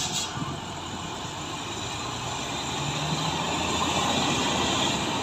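Heavy diesel trucks running, growing steadily louder over the last few seconds as a second truck comes up the climb. A short burst of air hiss sounds right at the start.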